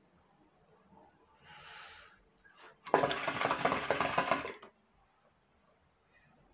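Hookah's water base bubbling hard for about a second and a half as smoke is drawn through the hose, cutting off sharply when the draw stops. A soft breathy hiss comes just before it.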